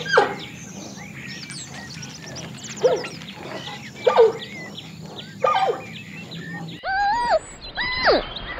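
Red panda calls: short, quickly falling cries, roughly one a second, with faint bird chirps behind. About two-thirds of the way in the sound changes to a run of longer, arched whining calls from a different animal.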